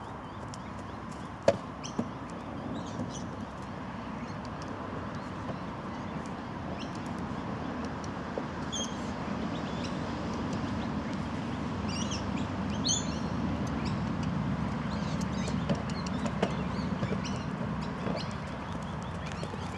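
Outdoor ambience: a steady low rumble of background noise, with several short high bird calls in the middle and a few scattered knocks, the sharpest about a second and a half in.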